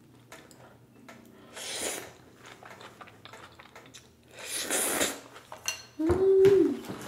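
Close-miked eating of udon noodles: light clicks of chopsticks against a bowl, a short slurp about two seconds in and a longer slurp about five seconds in. Near the end comes a hummed 'mm' of enjoyment, the loudest sound.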